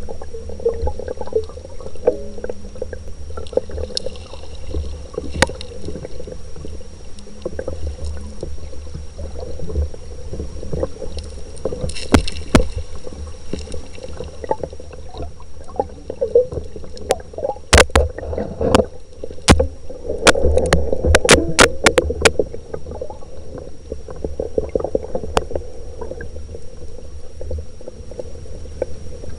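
Stream current heard underwater over a gravel bed: a steady low rumble and gurgle, with a faint steady high whine throughout. A cluster of sharp clicks and knocks comes about two-thirds of the way through.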